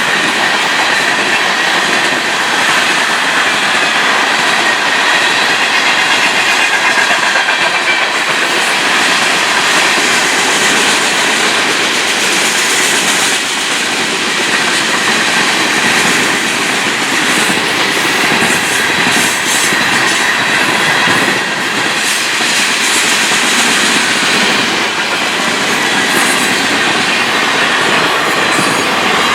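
Freight cars of a long Florida East Coast Railway train rolling past at speed: a loud, steady noise of steel wheels on rail with rattling from the cars and a faint high wheel squeal.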